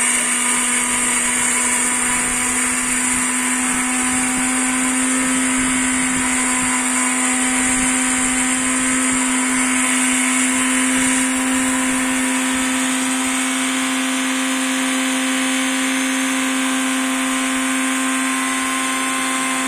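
Small electric spice grinder running steadily with its lid held down, grinding dried coriander seeds coarse. The motor holds one even pitch throughout.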